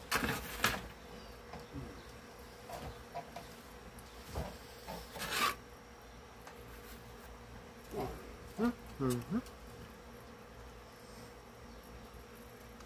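Handling noises as a speaker grill is fitted back onto a wooden cabinet: scattered rubs, taps and knocks, with a few short squeaks about eight to nine seconds in, over a steady faint hum.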